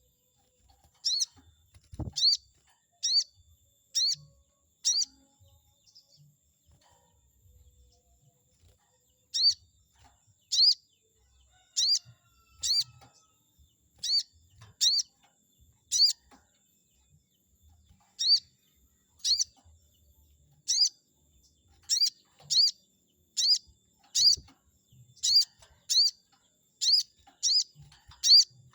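Brown-throated sunbird (sogon) calling a sharp, high 'cuiit' over and over, about once a second. A short run of five calls is followed by a pause of a few seconds, then a steady series that gets a little faster near the end. This is a rival-provoking lure call; a single low thump comes about two seconds in.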